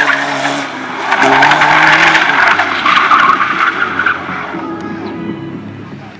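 Race car driven hard through slalom turns: the engine revs up and down while the tyres skid and squeal, and the sound fades near the end.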